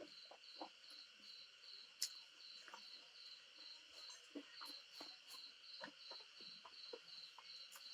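Near silence with faint insect chirping, a high note pulsing evenly about four times a second, and small scattered clicks and taps of eating.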